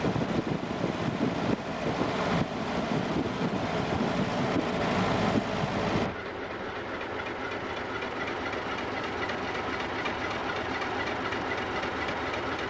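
Car driving along a road, its engine and road noise rumbling loudly with wind buffeting. About six seconds in this cuts off abruptly to a quieter, steady hum.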